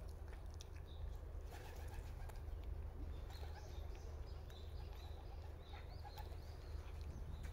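Wild birds calling faintly: a run of short, high chirps from about three seconds in, over a low steady rumble.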